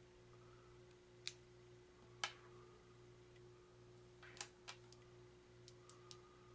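Small light pearly-white game dice set down one by one on a wooden tabletop: a sharp click about a second in, another about two seconds in, then a cluster of several clicks around four to five seconds and a few fainter ticks after. A faint steady hum lies under it all.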